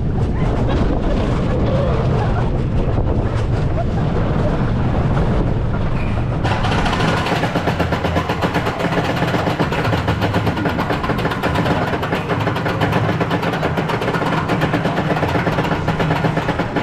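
Roller coaster ride noise: a steady rumble of the train running on its track, turning brighter and more rattling about six and a half seconds in as the train picks up speed, with wind on the microphone.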